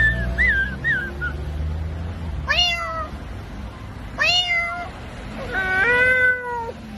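Three drawn-out meows about a second and a half apart, the last the longest and held nearly level in pitch. They are preceded by a quick run of short, high chirps in the first second.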